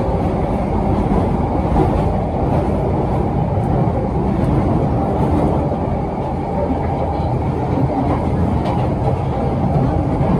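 London Underground 1972 Stock tube train running through a tunnel, heard from inside the carriage: a loud, steady rumble of the moving train.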